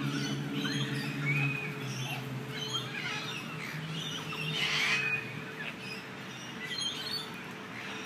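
Park birds giving many short chirps and squawks, with the loudest call about five seconds in. A low steady hum runs underneath for the first second and a half.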